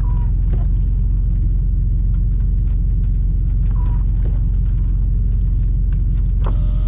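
Off-road 4x4's engine idling steadily with a low rumble, heard close through the bonnet. Two brief faint high chirps come over it, one at the start and one about four seconds in.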